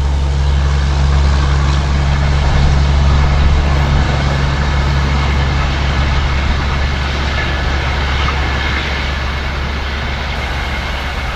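Passenger express train rolling past at speed: a steady rush of wheels on rail over a deep diesel drone that fades about halfway through. The sound eases gradually as the train draws away.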